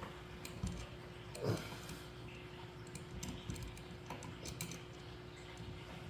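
Hand screwdriver driving an outlet's mounting screws into a wall electrical box: faint, scattered clicks and scrapes of metal, with a soft knock about one and a half seconds in.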